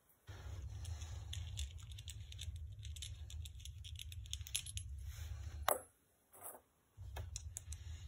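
Small metallic clicks and clinks of brass brazing-torch tips being handled and swapped, a single-flame tip taken off and a five-flame tip fitted, over a low steady hum. The sharpest click comes just before six seconds in.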